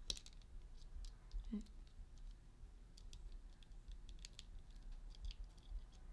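Faint, scattered small clicks and taps of plastic action-figure parts being handled and fitted together by hand.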